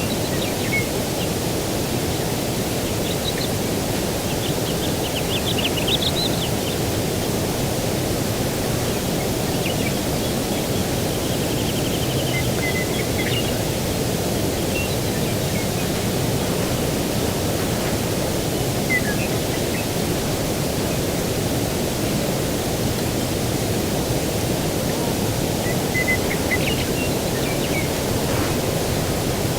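Outdoor ambience: a steady, even rushing of breeze and distant surf, with small birds chirping in short, scattered bursts every few seconds.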